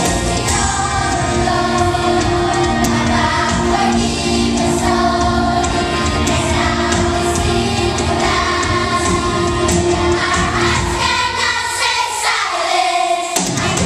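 Children's choir singing over amplified backing music with a steady beat. Near the end the bass drops out for about two seconds, then comes back in.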